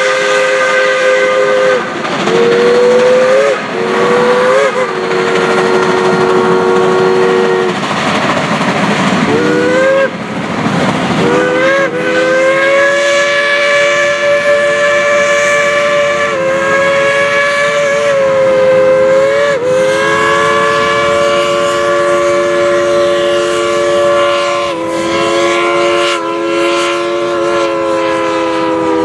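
Steam locomotive whistles blowing long, nearly continuous blasts of several tones at once, broken by short gaps with slight pitch bends. About eight to eleven seconds in, the whistles drop out and the locomotives' steam and exhaust noise comes through.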